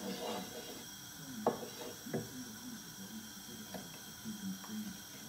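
Chopped onions tipped from a bowl into a frying pan of melted butter and pushed about with a wooden spoon, with a few light knocks of the spoon and bowl against the pan, the two clearest a little over a second apart.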